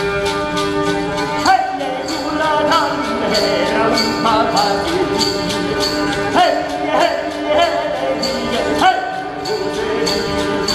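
Live music: a steady percussive beat of about three strokes a second over held drone notes, with a sliding note that falls in pitch every two or three seconds.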